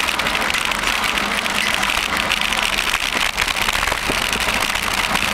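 Steady rushing noise of riding a bicycle at speed through a tunnel: air rushing past and tyres rolling on smooth pavement, with no distinct events.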